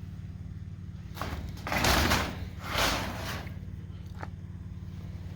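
Two short scraping sounds about a second apart over a steady low hum.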